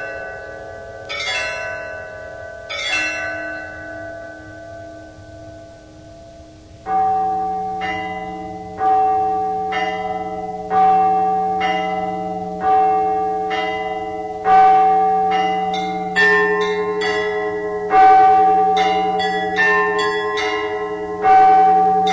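Church bells ringing: a few strikes of lighter bells ring and fade away, then about seven seconds in a deep bell begins striking steadily about every two seconds. In the last few seconds smaller bells chime quickly between its strokes.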